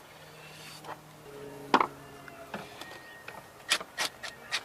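Hand work on parts under the hood: a single sharp knock a little under two seconds in, then a quick run of four or five sharp clicks near the end, over a faint steady hum.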